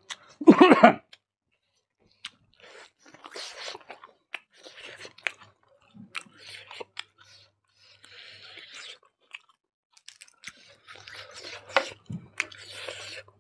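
Close-miked chewing of chicken and rice eaten by hand: wet mouth sounds, lip smacks and small crunches, coming in scattered patches with sharp clicks. A short, loud voiced sound comes about half a second in.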